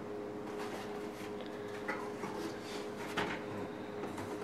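Parts and cardboard packing being handled and lifted out of a vacuum cleaner's shipping box. A few scattered rustles and light knocks, the clearest about two and three seconds in, sound over a steady low hum.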